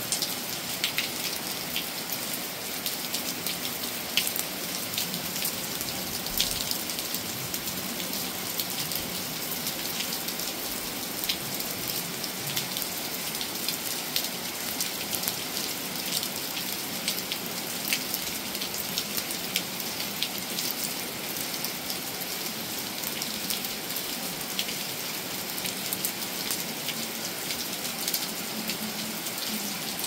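Steady rain falling: a constant even hiss, with frequent sharp ticks of individual drops striking close by.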